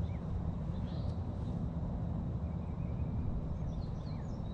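Steady low wind rumble on the microphone, with a few faint bird chirps scattered through it.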